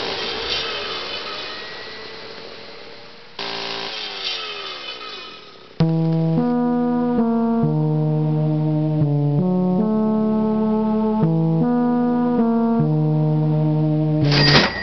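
Electronic keyboard playing a slow run of held chords, changing about once a second, after several seconds of noisy, fading sound with a sudden burst about three seconds in. Near the end a cash register sound begins.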